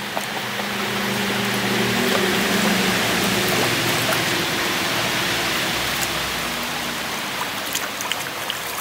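Creek water splashing and churning as a long stick is pushed through it and levered under a submerged rock, over the steady rush of the creek.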